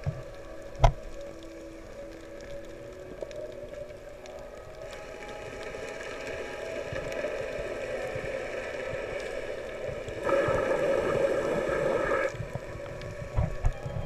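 Muffled underwater sound picked up by a submerged camera: a steady hum carrying several unchanging tones, growing louder from about five seconds in, with a louder rush of noise lasting about two seconds near the end.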